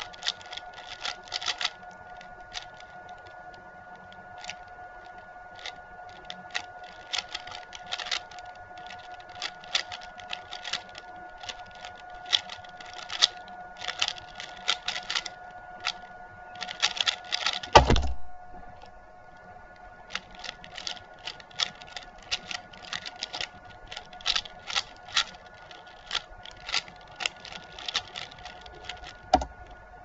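Plastic turning clicks of a stickerless QiYi Valk 3 3x3 speedcube being turned fast, in irregular rapid bursts of clacks. About eighteen seconds in there is one heavier thump, after which the clicking pauses briefly and then resumes. A steady faint tone runs underneath.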